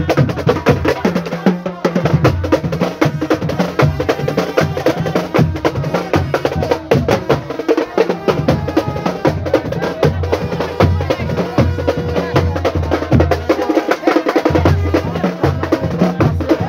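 Marching drum band playing a steady rhythmic beat on bass drums and snare drums, with sharp stick clicks running through it.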